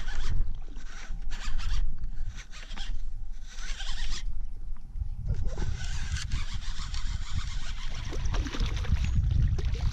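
Fishing reel being cranked, line coming in with a rapid, zipper-like ticking that comes and goes, loudest twice: near four seconds in and again from about six to nine seconds in. A low rumble runs underneath.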